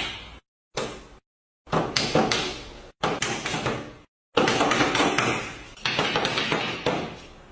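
Hands slapping on a wooden floor: a series of sharp smacks, each fading quickly. They come about a second apart at first and crowd closer together from about four seconds in.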